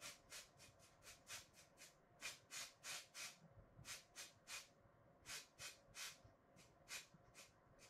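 Aerosol can of repositionable spray glue being worked: a faint, quick run of short hisses, about two to three a second, off and on.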